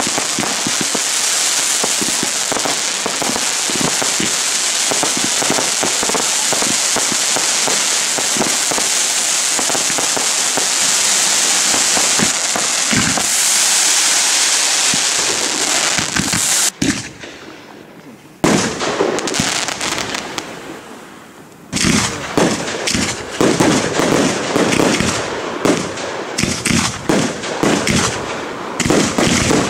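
Aerial fireworks display. For about the first sixteen seconds there is a dense, steady hissing and crackling from many fountain-like jets firing at once, which cuts off suddenly. A loud shell burst follows, then another a few seconds later, then a rapid run of bangs and crackles.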